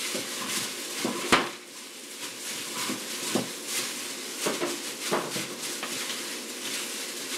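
Shredded green papaya salad being tossed by a hand in a plastic bag inside a glass baking dish: crinkling plastic with soft scrapes and taps against the glass, and one sharper knock a little over a second in.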